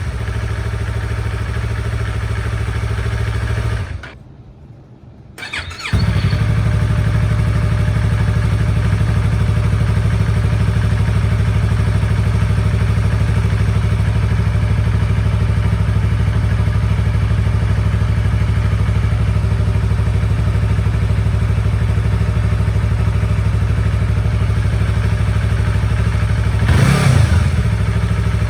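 2015 Yamaha R3's parallel-twin engine idling steadily through its exhaust. The sound cuts out about four seconds in and picks up again about two seconds later. Near the end the engine is blipped, rising and falling in revs.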